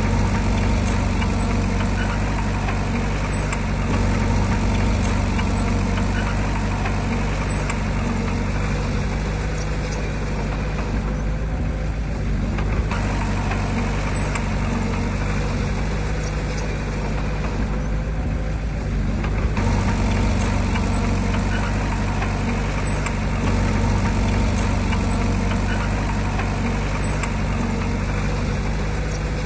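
Diesel engine of heavy earthmoving machinery running steadily. Its higher-pitched noise eases off twice for a couple of seconds, around ten and eighteen seconds in.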